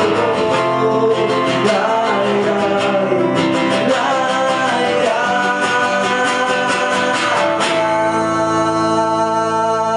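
Cutaway electro-acoustic guitar strummed fast and hard under a man's singing voice. About eight seconds in, the strumming stops on a chord that is left to ring.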